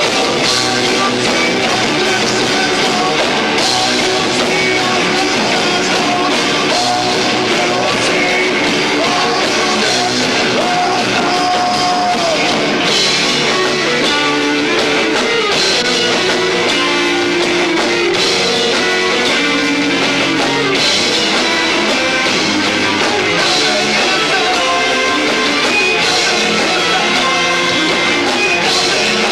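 Live rock band with two drummers and a bass guitar playing a song at full volume, recorded lo-fi on the built-in microphone of a 1990s camcorder.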